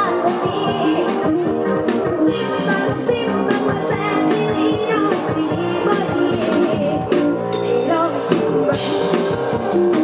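Live Isan band music from a sound-truck show, a drum kit keeping a steady beat under pitched instruments.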